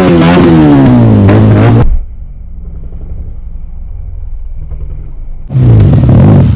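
Motorcycle engine revving through a loud modified exhaust. The pitch climbs and falls over the first two seconds, then cuts off suddenly to a much quieter low, steady hum for about three and a half seconds, and the loud engine sound returns near the end with the revs dropping.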